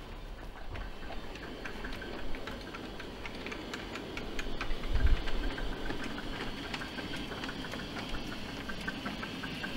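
5-inch gauge miniature steam locomotive and wagons running slowly on the garden track, with many quick, irregular clicks and ticks of the running gear and wheels on the rails. There is a brief low thump about five seconds in.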